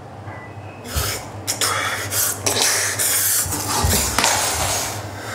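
A man retching and coughing harshly in a run of loud, noisy bursts from about a second in, easing off near the end.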